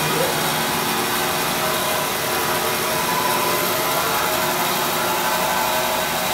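Oliver 416D band saw running free with no cut: a steady whir of the motor and moving blade with an even hiss and a few faint steady tones. It runs smoothly and quietly.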